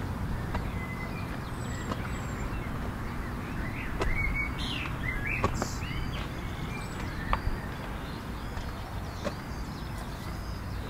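Small birds chirping again and again from about four seconds in, over a steady low rumble of outdoor background noise, with a few faint clicks.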